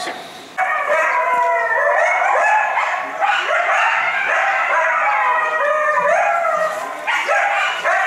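A coyote howling: high wavering howls and yips that rise and fall in pitch. They begin about half a second in and run on with only a brief dip near the end.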